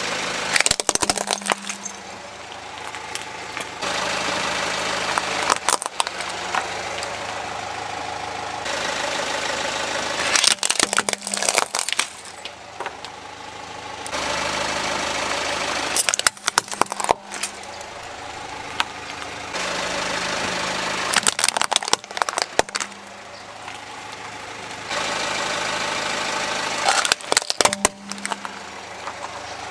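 Car engine idling under a steady hum, broken about six times by bursts of sharp cracking and crunching as a car tyre rolls over plastic toy vehicles and breaks them, with abrupt cuts between the crushes.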